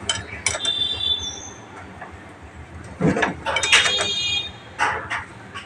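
Hand spanner clinking and scraping against engine nuts as they are tightened by hand, with short metallic rings. The busiest stretch of clinks comes about three seconds in.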